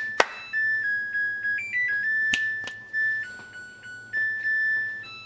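Samsung washing machine's end-of-cycle melody, played as a tune of single electronic beeper notes, signalling that the wash cycle has finished. A few sharp clicks sound at the start and about two and a half seconds in.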